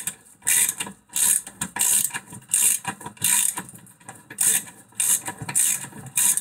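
Ratchet wrench being worked back and forth, a short burst of fast clicking with each swing, roughly one and a half swings a second.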